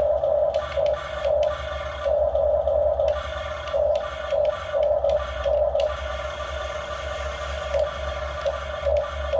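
RC excavator's small electric motors whining in short on-off bursts as the controls are worked, with a steadier, quieter stretch of whine in the second half.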